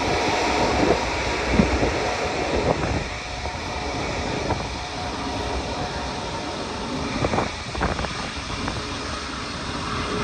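Airbus Beluga's two turbofan engines running at low thrust as it taxis: a steady low rumble with faint steady tones over it.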